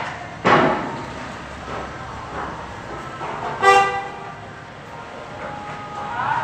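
A vehicle horn toots once, briefly, about three and a half seconds in, over steady street background noise. A sharp knock comes about half a second in, and near the end a second tone slides up and then holds steady.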